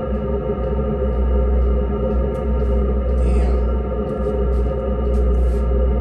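Chinese diesel heater running steadily at its exhaust outlet: a constant low combustion rumble with an even, unchanging hum from the blower, and faint scattered ticks over it.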